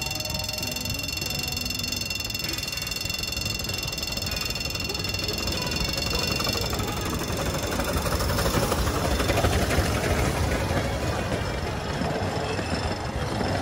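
Little Puffer steam train running, its rumble growing louder about halfway through and easing off near the end. A steady high whine runs through the first half.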